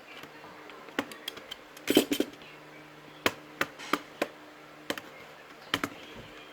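Irregular sharp clicks and taps of tools and hard plastic against a laptop's case as it is being taken apart, about a dozen in all, with a quick cluster of knocks about two seconds in.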